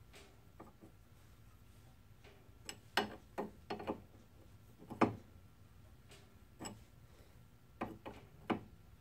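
Scattered metal clicks and clinks of combination wrenches on a tie rod end and its jam nut as the nut is tightened. There are about nine sharp, irregular clicks, the loudest about five seconds in.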